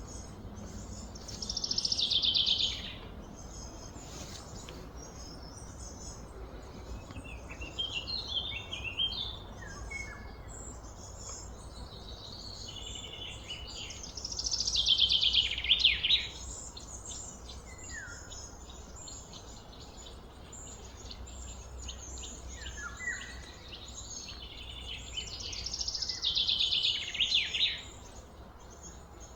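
Outdoor ambience of high chirping and trilling wildlife calls over a low steady hum. Three louder buzzy runs, each about a second and a half long and falling slightly in pitch, come near the start, in the middle and near the end, with softer scattered chirps between.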